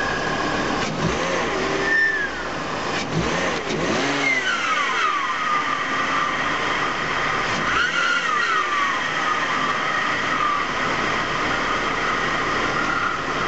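BMW 325i E46 straight-six engine revved in three short blips, its pitch rising and falling each time, with a steady higher whine running over the engine sound. This is the intake air noise that is the problem being shown.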